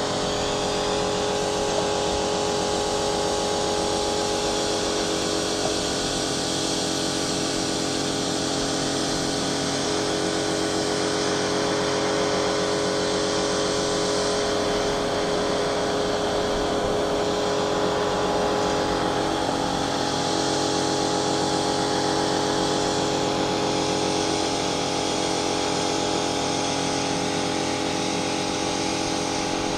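Kärcher K5 Premium Home electric pressure washer running steadily under load: a steady motor-and-pump hum over the hiss of the high-pressure water jet.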